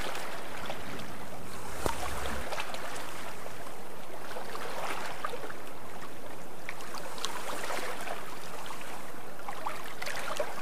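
Water washing and splashing along the hull of a sailboat under way: a steady wash with many small splashes and drips scattered through it.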